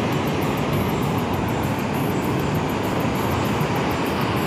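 Steady, even rushing noise of ocean surf breaking on the beach.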